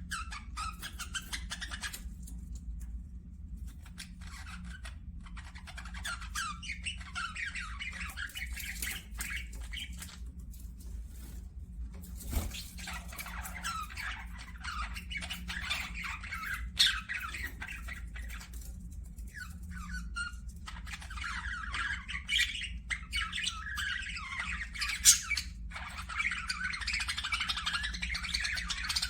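Pet budgerigars (parakeets) chattering and squawking in long bursts, with a few short pauses, over a faint steady low hum.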